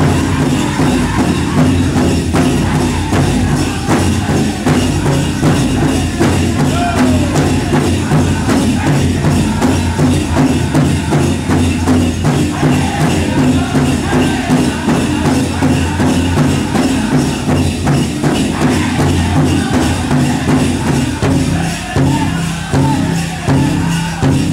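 Powwow drum group singing over a steady, driving drumbeat, with the jingling of dancers' bells mixed in.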